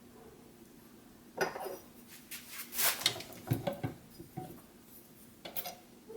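Loose steel parts of a machine gun parts kit clinking and clattering as they are handled and set down: a run of knocks starting about a second and a half in, and a short clatter again near the end.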